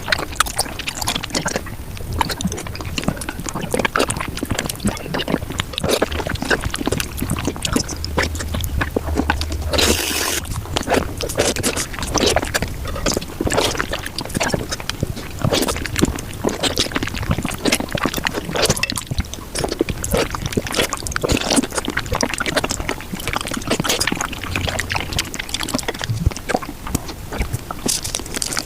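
Close-miked mukbang eating sounds of pudding played at five times speed: a dense, rapid run of wet squelches, smacks and slurps. A brief hiss comes about ten seconds in.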